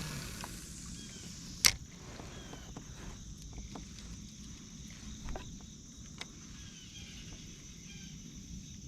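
A fishing rod's cast swishes at the start, then one sharp loud knock comes a little under two seconds in. After that there are small ticks and faint high chirps over a low steady background.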